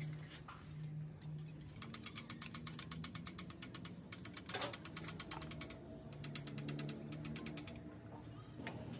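Ratchet wrench clicking in fast runs as the nuts on a tractor cylinder head are turned, with a short break about halfway through.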